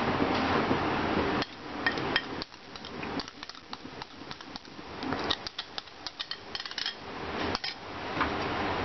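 Scattered knocks and clinks of a bowl being tapped and scraped against the wok as thick cashew and almond paste is emptied into the chicken gravy. A steady hiss runs under the first second and a half and then cuts off suddenly.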